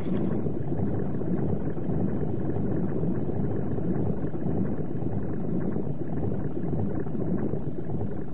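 Steady low rushing noise of an underwater ambience, with no distinct events and no clear pitch.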